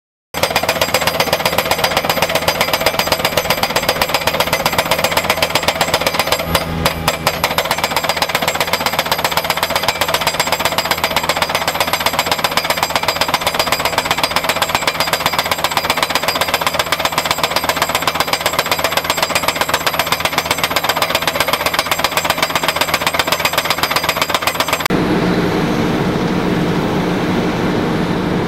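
Hydraulic guardrail post driver hammering a steel post into the ground: a fast, even run of metal blows, several a second. Near the end it cuts to the steady low running of an asphalt paver's engine.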